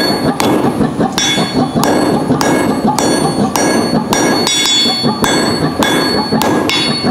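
Hammer blows on hot railroad-spike steel over an anvil, about two a second, each followed by a brief metallic ring: the stem of the leaf being forged out, its corners knocked down to round it.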